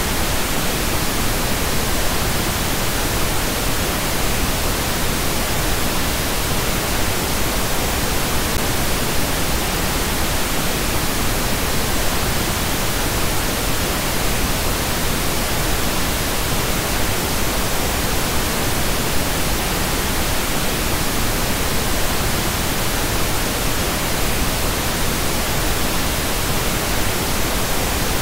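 Pink noise test signal: a steady, even hiss spread across the whole range, unchanging throughout.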